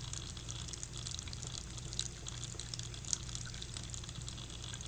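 Sink tap running steadily in a thin stream while a cat laps water from it, with a few small wet ticks now and then.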